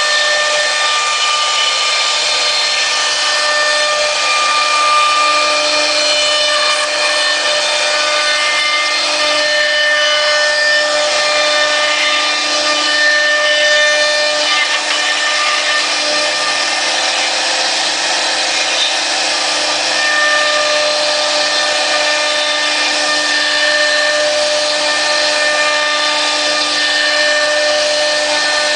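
3-axis CNC router's spindle running with its bit cutting wood: a steady whine of several fixed tones over the hiss of the cut.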